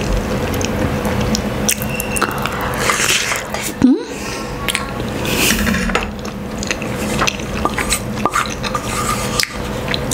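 Close-miked eating sounds: a wooden spoon and a metal fork scraping and clicking against a wooden board as rice, egg and sardine are scooped up, followed by chewing.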